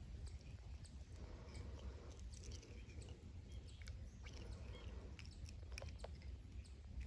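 Quiet outdoor background: a steady low rumble with scattered faint clicks and ticks, and a few faint bird chirps.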